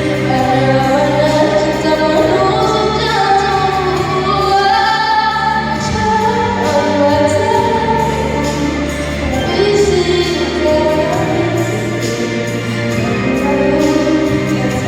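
A female voice singing a melody over musical accompaniment with a steady bass.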